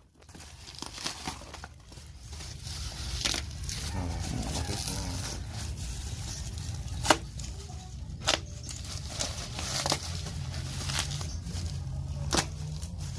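Plastic courier mailer and bubble wrap crinkling and tearing as a parcel is unwrapped and slit open with a small cutter blade, with a few sharp clicks along the way.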